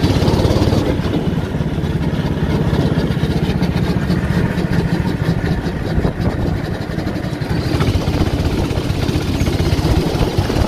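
Go-kart's small petrol engine running steadily as the kart drives around the track, with a fast, even run of firing pulses.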